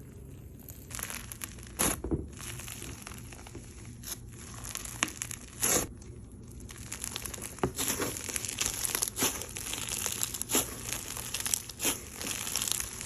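Slime being squeezed and poked by hand: a continuous crackle with many sharp pops of air, louder and busier in the second half.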